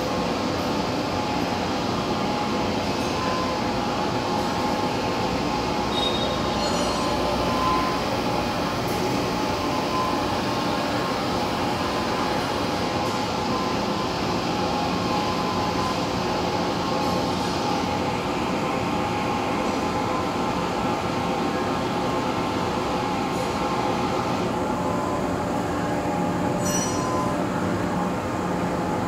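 Large heavy-duty lathe running as it turns a big grooved steel roll: a steady drone with several held tones from the drive and spindle. Faint high clinks come twice, once about six seconds in and once near the end.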